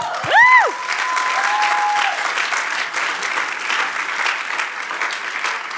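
Church congregation applauding, with a brief high rising-and-falling whoop near the start. The applause tapers off near the end.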